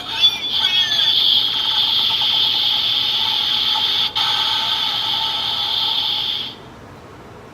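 Electronic fizzing-bubble sound effect from a Kamen Rider Build DX toy's small speaker: a steady bright hiss with a faint tone under it, which cuts off suddenly about six and a half seconds in.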